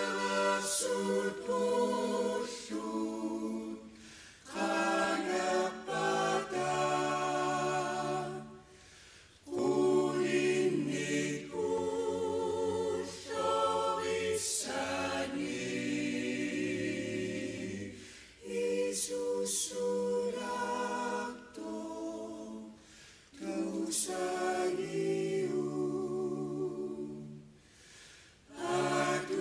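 Choir singing unaccompanied in several parts, with held low notes under the melody, in phrases of a few seconds separated by short breaks for breath.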